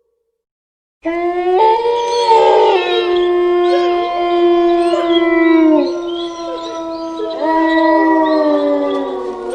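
A group of wolves howling together, starting about a second in: several long overlapping howls at different pitches, some sliding down, with higher yips above. A fresh howl rises in about three quarters of the way through.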